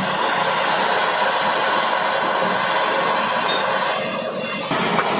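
Hand-held gas torch burning with a steady rushing hiss while its flame is played on an old radiator to melt solder. The hiss dips briefly about four seconds in, then picks up again.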